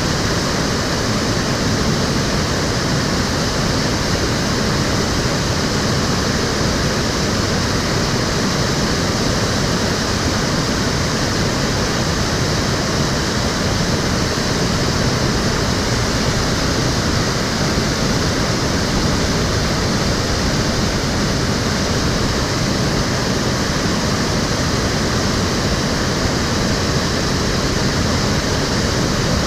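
Steady rush of water flowing in a stream, an even, unbroken noise with no change throughout.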